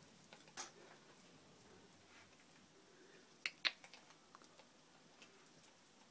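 Faint clicks and taps of a Yorkshire terrier's claws on tiles, with two sharp clicks in quick succession about three and a half seconds in.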